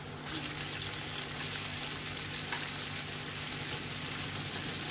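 Coated chicken pieces deep-frying in hot oil: a steady sizzle of bubbling oil, which gets louder a moment in.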